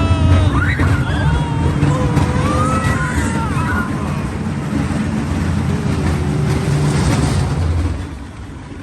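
Fairground train ride rumbling along its track, with high wavering shrieks over it in the first few seconds. The rumble drops away about eight seconds in as the ride winds down.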